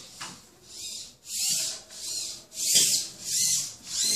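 Small humanoid robot's servo motors whining in a run of short high-pitched bursts, roughly one and a half a second, each rising and falling in pitch as a limb moves and stops, while the robot goes down into a push-up-like pose.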